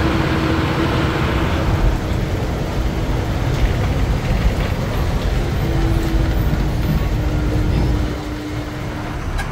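Diesel engine and road noise of a TNSTC bus on the move, heard from inside its cabin: a steady rumble with a faint steady hum in it. The noise eases a little near the end.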